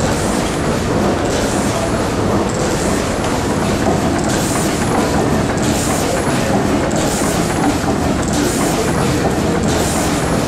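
1919 Worthington two-cylinder, double-acting natural gas pumping engine running steadily, with a regular hissing beat about every one and a half seconds.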